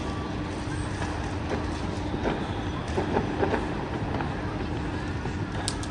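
Steady rumble of a busy street full of cars in traffic, with a faint steady hum. Scattered sharp pops, distant firecrackers, come a few times, one of them near the end.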